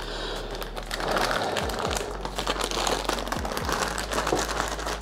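Clear plastic packaging bag crinkling and rustling as it is handled and opened, over background music with a steady bass.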